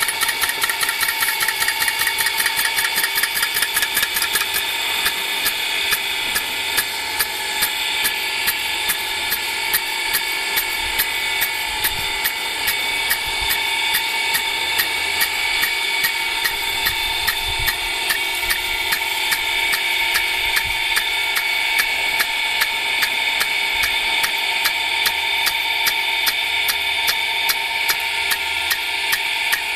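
2-inch rain gun impact sprinkler running: its spring-loaded swing arm ticks rapidly and steadily as it swings through the water jet, over a steady hiss of spray. The ticks come faster for the first few seconds, then settle into an even rhythm.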